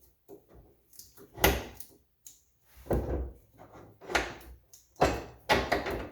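Impact wrench run in several short bursts on a rear tie-bar bolt, with pauses between trigger pulls as the bolt is loosened.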